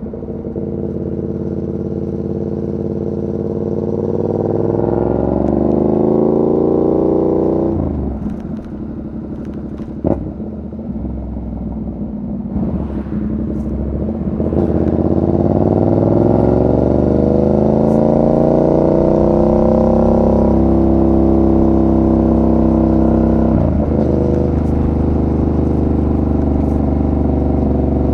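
Yamaha MT-07's 689 cc parallel-twin engine under way, its pitch climbing as it pulls through the revs. It drops away about eight seconds in, climbs again, then settles into a steady run with a brief dip near the end.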